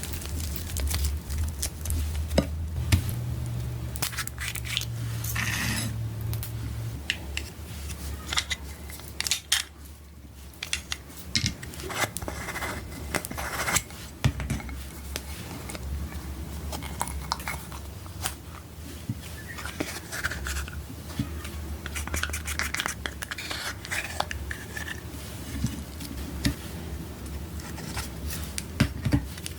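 Hand-tool handling sounds: repeated scraping and sharp clicks of utensils against small hard containers, typical of makeup being scraped out and mixed into slime. A steady low hum runs underneath.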